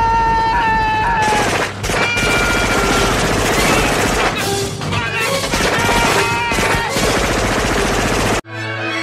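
Sustained rapid automatic gunfire from a film soundtrack, with a few long, high held tones over it. It cuts off abruptly near the end.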